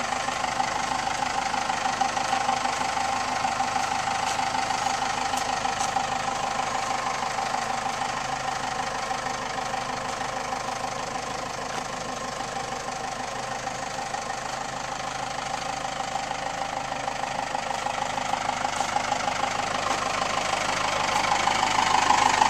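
4BT Cummins four-cylinder turbodiesel in a 1948 Chevy pickup idling steadily through twin exhaust stacks. It grows louder near the end.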